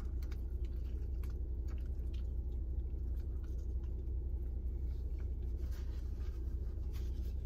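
A man biting into and chewing a steak, egg and cheese bagel sandwich, with faint, irregular clicks of chewing over a steady low hum.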